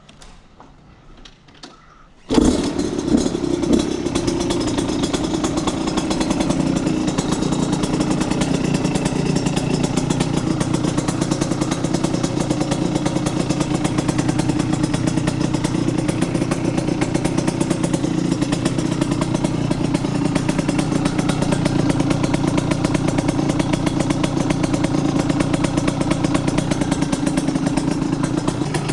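Husqvarna SM 125 two-stroke motorcycle engine, breathing through a handmade exhaust silencer, starts suddenly about two seconds in after a few faint clicks, then idles steadily.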